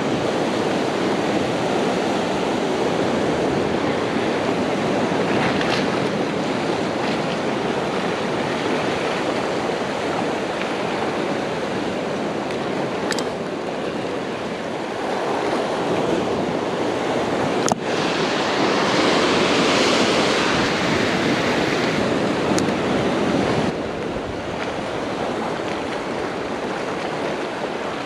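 Ocean surf washing and breaking, swelling louder for several seconds past the middle, with a sharp click about two thirds of the way through.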